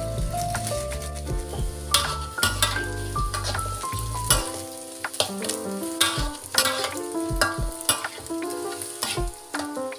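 Tempeh cubes being stir-fried in a wok, with a metal spatula scraping and clacking against the pan in repeated sharp strikes over sizzling oil. Melodic background music plays throughout.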